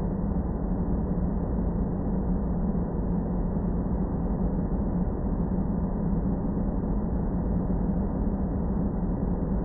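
Sci-fi space-planet ambience: a steady, muffled, deep rumbling noise drone with a low hum running through it, unchanging throughout.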